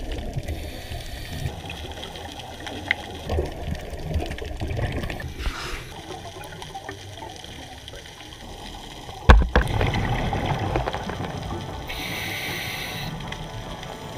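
Underwater sound picked up through a camera housing: a steady muffled water rush with light crackle, a short hiss about five seconds in, one sharp knock a little past nine seconds, and a brief higher hiss near the end.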